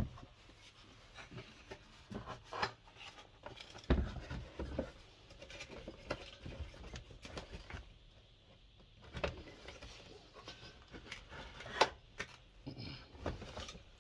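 Irregular knocks, clicks and rubbing from a diesel heater's parts being handled and forced by hand during dismantling. The heaviest thump comes about four seconds in, and a sharp click comes near the end.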